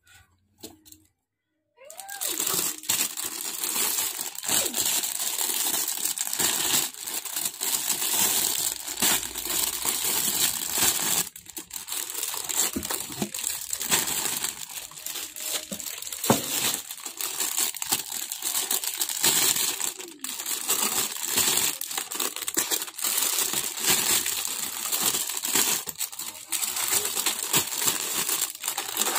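Clear plastic bags around model-kit part runners crinkling as they are handled and turned over, starting about two seconds in, with a few sharper clicks along the way.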